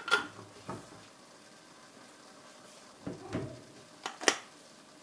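A glass jam jar and its lid clinking and knocking as the jar is closed and handled. There is a sharp click right at the start, a few softer knocks around three seconds in, and the loudest click about four seconds in.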